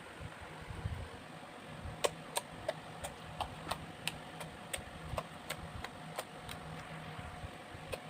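Slime being mixed and squeezed by hand, giving small sticky clicks and pops at an irregular pace over a faint steady hum.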